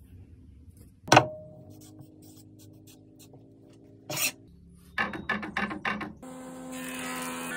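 A sharp knock about a second in. Around five seconds, a run of quick scratchy strokes of a marker pen on rough ash wood. From about six seconds in, a planer-jointer starts running steadily, humming with several even tones over a hiss as the board is fed across it.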